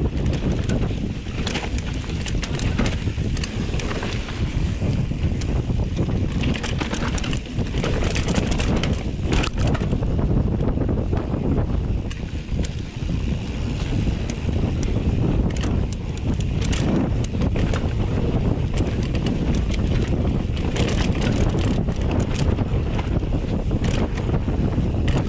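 Wind noise buffeting an action camera's microphone on a mountain bike riding down dirt singletrack, with tyre noise on the dirt and scattered clicks and rattles from the bike over bumps.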